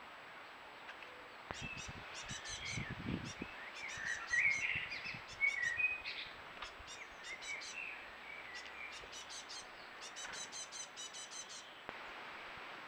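Young blue tits calling: quick runs of thin, very high calls mixed with lower chirps, stopping shortly before the end. A few soft low thuds come about two to three seconds in.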